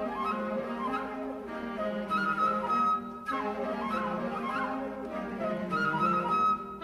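Flute playing a quick, busy melody in three short phrases, over lower instruments. In this piece the flute is the cicada's instrument.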